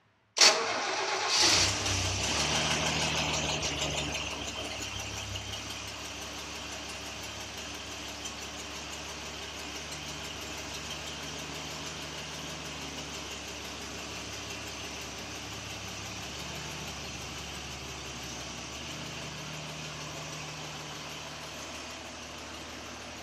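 Toyota FJ40 Land Cruiser's straight-six petrol engine starting up. It runs fast and louder for a few seconds, then settles to a steady idle.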